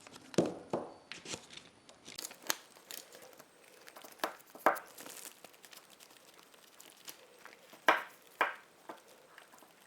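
Handling noise from hydraulic valve lifters (lash adjusters) being pressed by hand to check whether their plungers compress: a scatter of sharp metallic clicks at uneven intervals over light rustling.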